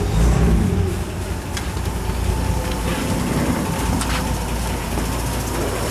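Chevrolet 235 cubic-inch straight-six engine with twin carburetors and dual exhaust running just after starting. It is a little louder and higher in the first second, then settles into a steady, smooth idle.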